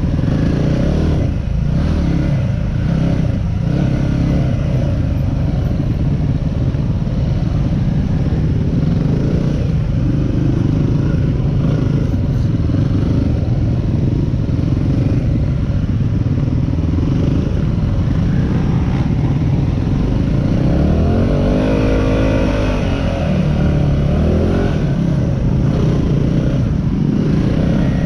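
Yamaha WR250R's single-cylinder four-stroke engine running steadily while riding a dirt trail. About twenty seconds in, it revs up and then back down.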